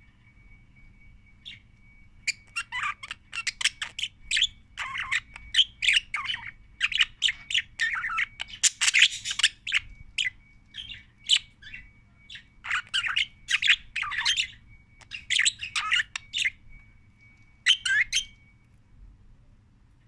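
Budgerigar chirping and warbling in a rapid, chattering run of short calls that stops near the end.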